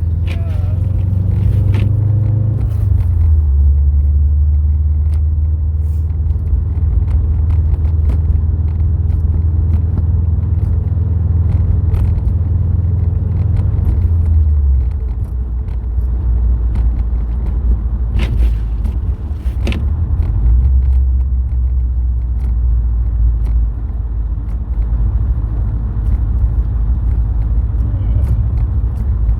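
Subaru WRX STI driving: a steady low drone of its turbocharged flat-four engine and the road. The drone drops in pitch about halfway through and picks up again about two-thirds in, with a few faint clicks.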